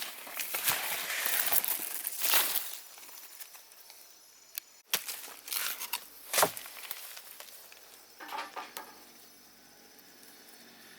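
Rustling and crinkling handling noise for the first few seconds, followed by a few short sharp clicks and a brief patter of small ticks.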